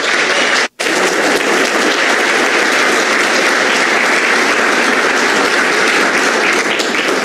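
An audience applauding steadily, with a brief dropout in the sound under a second in.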